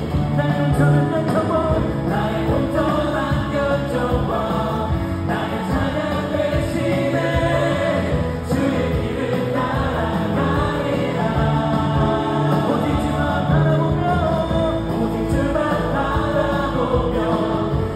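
Live contemporary Christian worship band playing drums, electric guitar, bass guitar and keyboard, with voices singing.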